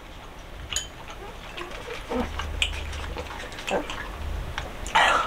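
A person making pained huffing, grunting breaths from the burn of hot-sauce-spiced food, with a loud sharp breath near the end. Light clicks of a fork in a ceramic bowl come through between them.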